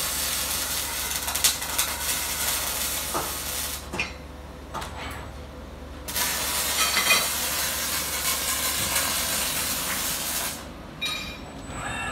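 ABB welding robot's MIG welding arc, a steady crackling hiss laying a weld in two runs. The first run stops after about four seconds, the second starts about six seconds in and stops about ten and a half seconds in.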